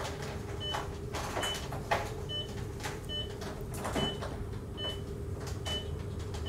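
Pulse oximeter beeping with each detected pulse, a short high beep a little more than once a second at a regular rate, over a steady low hum. Rustling and knocks of equipment being handled come and go, the sharpest about two seconds in.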